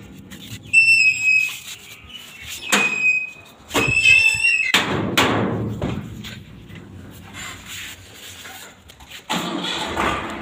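Large steel-sheet farm gate being opened: three short, high metal squeals in the first few seconds, then louder clanking and scraping of the metal gate, about halfway through and again near the end.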